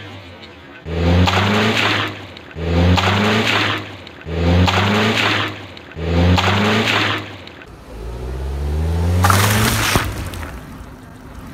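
A car's engine and tyres as it rolls over a pile of water balloons on a wet road, heard in four short passes of about a second each, then a longer pass where the engine pitch rises and a loud spraying hiss of bursting balloons comes about nine seconds in.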